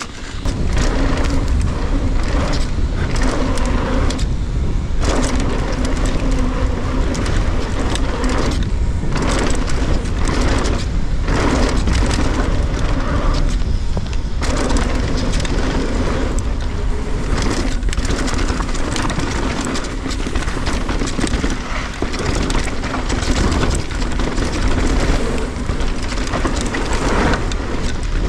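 Electric mountain bike ridden fast down a dirt and rock trail: heavy wind buffeting on the camera microphone with a constant rumble and clatter of tyres, suspension and chain over roots and rocks. A low hum runs under it and drops out briefly a few times.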